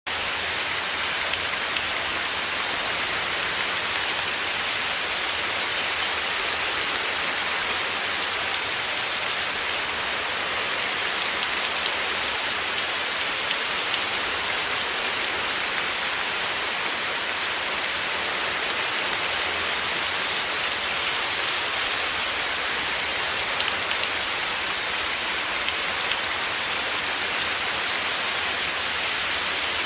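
Heavy rain falling steadily, a dense even patter of drops with no letup.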